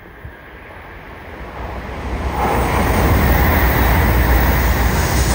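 Shinkansen high-speed train coming through: a rushing noise with a deep rumble swells over about the first two and a half seconds, then holds loud and steady as the train passes.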